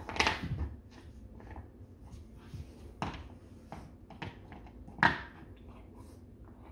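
Golden retriever puppy gnawing on a Whimzees alligator dental chew: irregular clicks, crunches and knocks, the loudest just after the start and about five seconds in.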